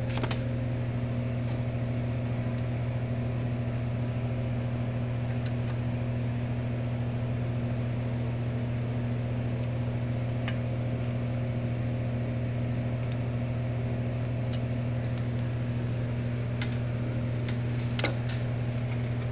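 Steady low mechanical hum of a motor-driven machine running, with a few light metallic clicks from a screwdriver working on a small engine's breaker plate.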